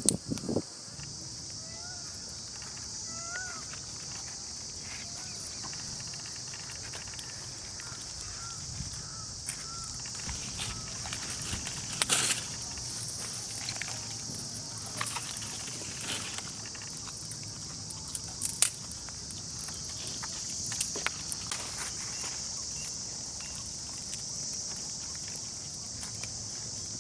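Steady high-pitched insect chorus. Short chirping calls come a few times in the first ten seconds, and scattered knocks and rustles stand out, the loudest about twelve and eighteen seconds in.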